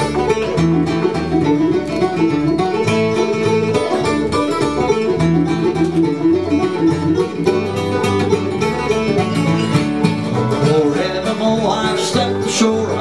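Bluegrass band playing an instrumental break, a five-string banjo picking over guitar accompaniment.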